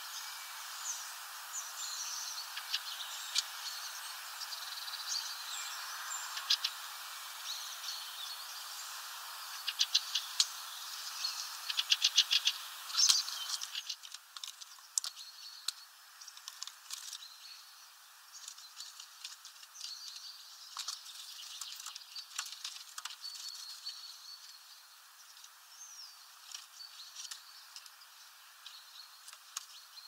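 Small songbirds chirping and calling, with sharp taps and fast runs of clicks around ten and twelve seconds in from a great tit pecking at seed in a plastic feeder. A steady hiss sits under it and drops about halfway through.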